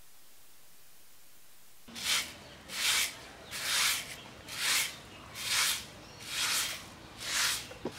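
Short hand broom sweeping a concrete floor: a steady series of swishes about one a second, starting about two seconds in.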